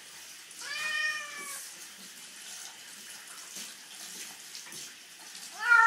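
Calico cat meowing as it is bathed in a tub: one drawn-out meow about a second long near the start, and another rising meow beginning near the end. Faint water sounds in between.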